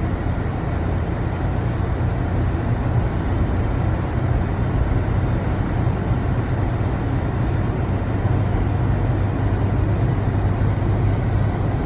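A car heard from inside the cabin: a steady low rumble with an even hiss above it.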